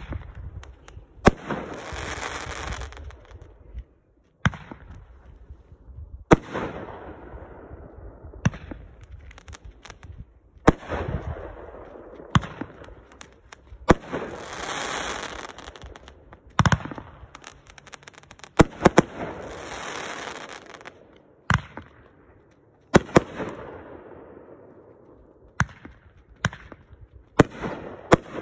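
Consumer firework cakes (9-shot aerial repeaters) firing: sharp launch thumps and shell bursts every second or two, several followed by about a second of hiss from the breaking stars.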